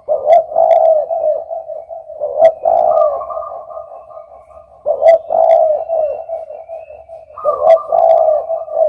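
Spotted dove (derkuku) cooing: a phrase of several low coos repeated four times, about every two and a half seconds, with a sharp click at the start of some phrases.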